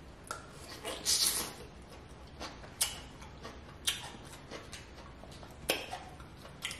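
Close-miked eating of snow crab legs: a wet, sucking slurp about a second in, then a string of sharp clicks and smacks from chewing and picking at the crab shell.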